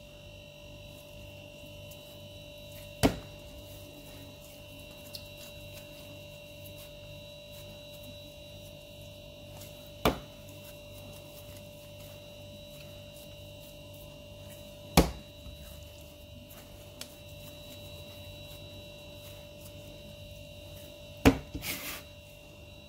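Four sharp taps several seconds apart as balls of msemen dough are set down into a glass baking dish, over a steady electrical hum with a few high whining tones.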